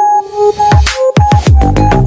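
Electronic dance music: a brief breakdown of held synth notes, then the heavy beat and bass come back in within the first second.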